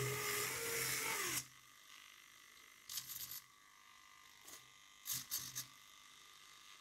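SG90 micro servos whirring as a small robot arm moves: one loud whine in the first second and a half, its pitch rising then falling, then two short bursts of servo movement about three and five seconds in. Between the moves the servos hold with a faint steady buzz.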